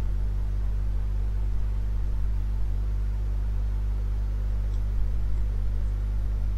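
Steady low hum with a faint hiss, unchanging throughout: the background noise of the recording setup.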